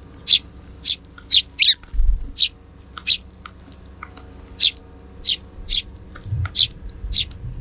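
Sparrows chirping: a run of short, high chirps, roughly two a second with a few pauses, one near the start sliding downward. A low rumble comes about two seconds in and again near the end.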